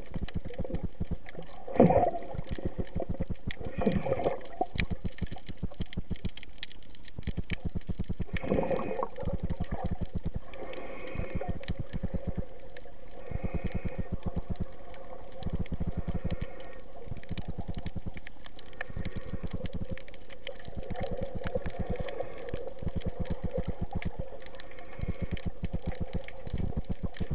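Underwater sound picked up through an action camera's waterproof housing: a dense, steady crackle of fast clicks over a low hum, with a few louder bubbling sounds, the loudest about two seconds in.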